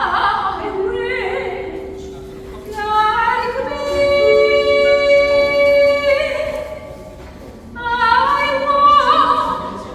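A voice singing slow, long held notes, each note wavering as it starts and then steadying. There are two longer phrases, separated by short pauses.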